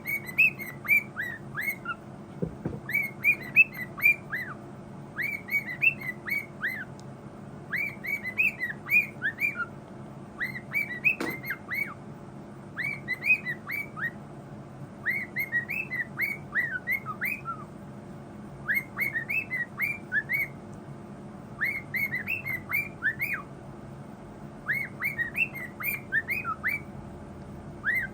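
A pet bird chirping in quick runs of short falling whistled notes, with a new run about every two seconds.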